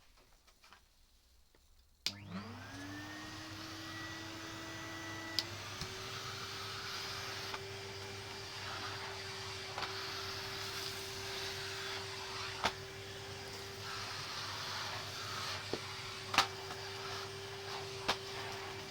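Vacuum cleaner switched on about two seconds in, its motor whining up to speed and then running steadily with a rushing hiss; its pitch steps up slightly a few seconds later. A few sharp clicks and knocks come through over the steady running.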